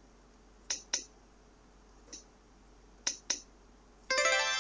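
Sharp clicks, mostly in pairs, as on-screen buttons of a digital textbook are pressed. Near the end a short plucked musical chord from the textbook's audio rings out and fades.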